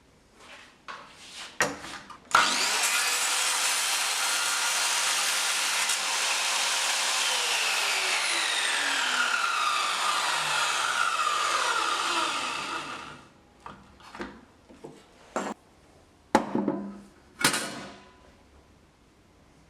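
An electric power tool starts suddenly and runs steadily on wood for about ten seconds, then stops. A few wooden knocks and clacks come before and after it.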